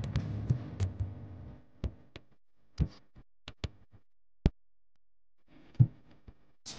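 Background music fading out over the first second and a half, followed by a handful of sharp isolated clicks over near silence, then music returning faintly near the end.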